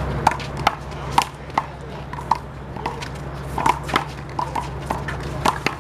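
One-wall handball rally: the big blue handball sharply smacked by hands and slapping off the wall and court, several irregular hits a second.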